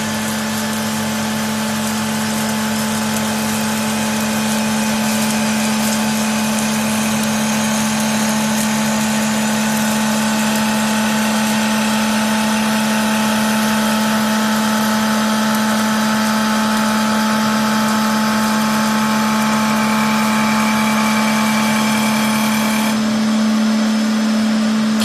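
WS-L1530A CNC wood lathe turning a wooden spindle blank while its motorised cutting head shapes the wood. It is a loud, steady machine hum with higher ringing tones over a dense hiss of cutting.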